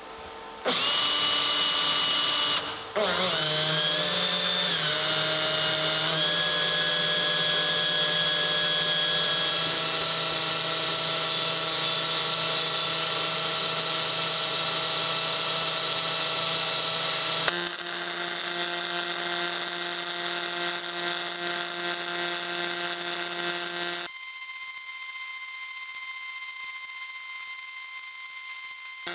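Electric motor of a DIY rotary welding positioner running steadily, its pitch shifting briefly soon after it starts. About two thirds of the way in the sound changes with a sharp click to the steady buzz of a pulse MIG welding arc as the part turns under the torch.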